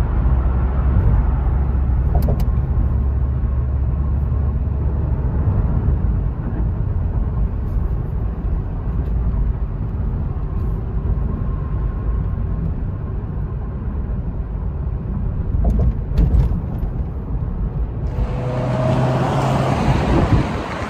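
Steady low road and engine rumble of a car at highway speed, heard inside the cabin. Near the end it cuts abruptly to a louder, hissier outdoor noise of wind on the microphone and passing traffic.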